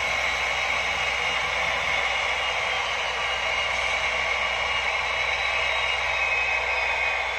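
Steady hiss-like mechanical hum with a faint high whine, thin and lacking any low end, from a model train locomotive on the layout.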